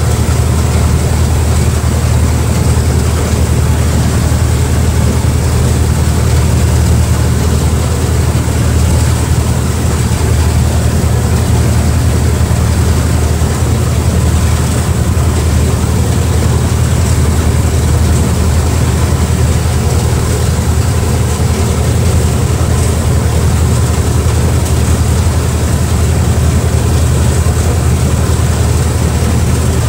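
Passenger speedboat's engine running steadily at cruising speed, a loud low drone, with water rushing past the hull and wind.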